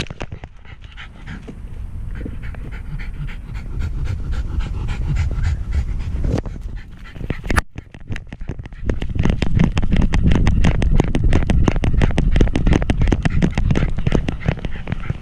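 A wire-haired fox terrier panting fast and very close, picked up by a GoPro strapped to its back, over a low rumble from the loosely mounted camera shifting on the harness. One sharp knock about halfway through.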